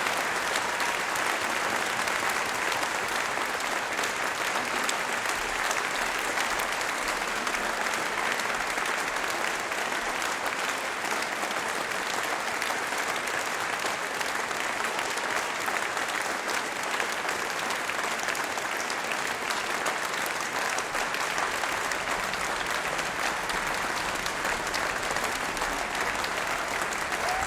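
Concert-hall audience applauding: steady, dense clapping that holds an even level throughout.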